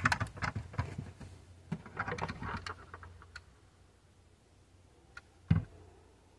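Light clicks and taps from a 1/24 scale diecast metal Audi A7 model being handled as its hood is lifted open, with a cluster of clicks about two seconds in and a single low thump near the end.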